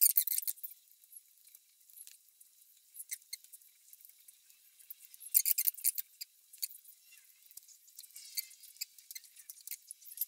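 Wet mouth clicks, smacks and sucking sounds of someone eating spicy chicken feet with their fingers, chewing and sucking the skin off the bones, close to the microphone. The clicks come in uneven clusters, loudest right at the start and again about five and a half seconds in.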